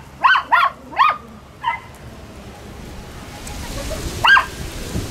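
A dog barking in short, high-pitched yips: three quick ones in the first second, a weaker one a little later and one more about four seconds in.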